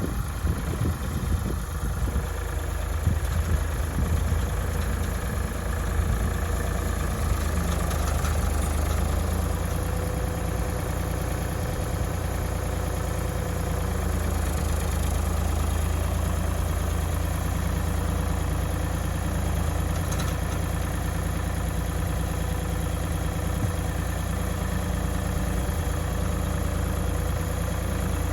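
Tractor engine running steadily at a low, even speed, with small rises and falls in its note now and then.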